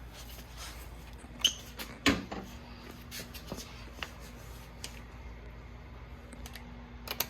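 Scattered light clicks and knocks of tools and metal parts being handled while fitting the upper strut bolts, with two louder knocks about one and a half and two seconds in. A faint steady hum comes in about two seconds in.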